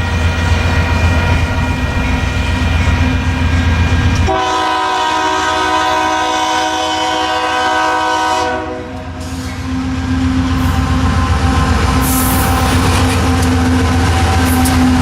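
Union Pacific freight locomotive horn sounding a steady chord over the low rumble of a moving train. About four seconds in it cuts abruptly to a different horn chord that stops near the middle, after which the train's rumble and wheel clatter carry on.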